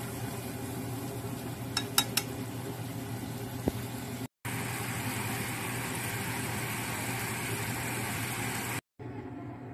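Onion sauce simmering and sizzling in a frying pan as it reduces, with a few sharp clicks of chopsticks against the pan about two seconds in. From about four seconds in the sizzle is brighter and louder, over a steady low hum.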